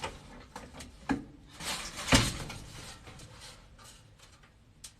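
Sheet-metal furnace panel being worked back into place by hand: a few metal knocks and a scrape, the loudest about two seconds in, then faint handling sounds.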